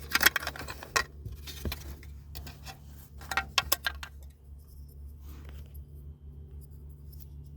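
Small plastic parts of a car's gear shifter assembly clicking and rattling as they are handled and fitted into place, in several quick clusters over the first four seconds, then only a few faint clicks. A low steady hum runs underneath.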